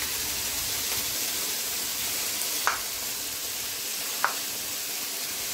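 Fava beans frying in oil in a pan with a steady sizzle, with two light taps about two and a half seconds in and again about four seconds in.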